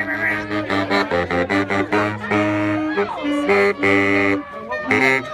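Saxophone played solo: a melody of quick short notes followed by a few longer held notes.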